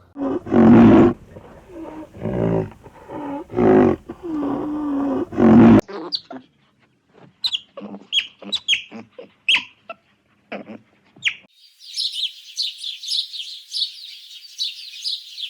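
A large animal growling and roaring in about five loud, low calls over the first six seconds. Then come scattered short, high chirps, and from about twelve seconds in a fast, dense, high trill of bird or insect calls.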